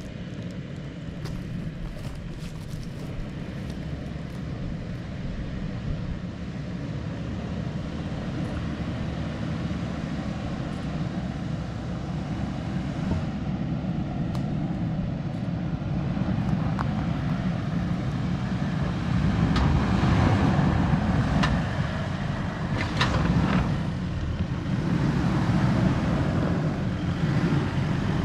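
Four-wheel-drive vehicle's engine running under load as it climbs a steep rocky section, growing steadily louder as it comes closer, with a few sharp clicks about two-thirds of the way through.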